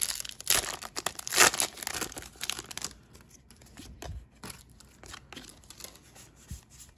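A Pokémon trading-card booster pack's foil wrapper being torn open and crinkled, loudest about a second and a half in. After about three seconds it gives way to quieter light clicks and rustles as the stack of cards is slid out and handled.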